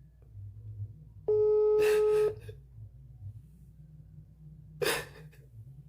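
Telephone ringback tone through a phone's speaker: one steady beep about a second long, the ring signal repeating every five seconds that means the called phone is ringing and not yet answered. A short hissy noise comes about five seconds in.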